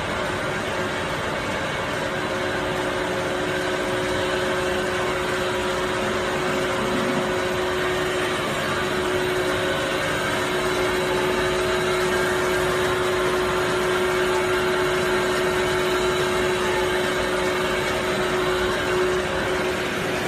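Hard candy production line machinery running steadily: a continuous mechanical hum with a constant steady tone through it.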